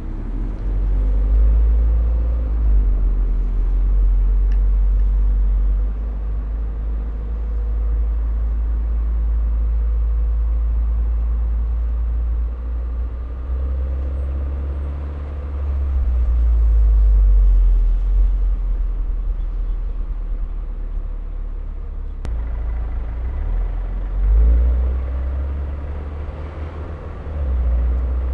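Turbocharged Mini Cooper on the move: a deep engine and road rumble that swells and eases several times as the car accelerates and lifts off, with one sharp click about two-thirds of the way through.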